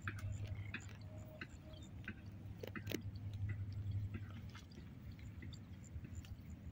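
Rice plants rustling, with irregular crisp crackles and snaps as the stalks are brushed through and pulled, over a low steady rumble.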